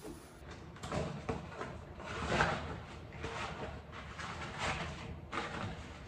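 Rubber cleaning gloves being pulled on and worked onto the hands: irregular rubbery rustling with a few light knocks, the loudest about two and a half seconds in.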